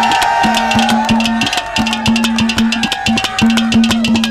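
Live Haryanvi ragni folk music: a harmonium melody over a held low note, with fast, even percussion strokes throughout.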